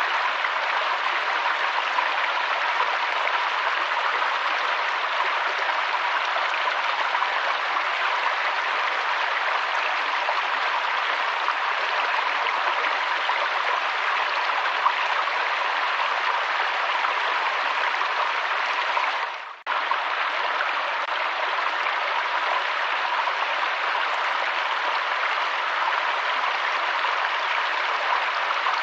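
Waterfall running with a steady, even rush of water. About two-thirds of the way through it fades briefly and comes straight back.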